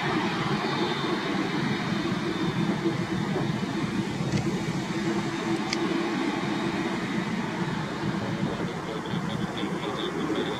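Boeing 787-8 Dreamliner's jet engines running steadily at low power as the airliner rolls out after landing, a continuous rumbling hum.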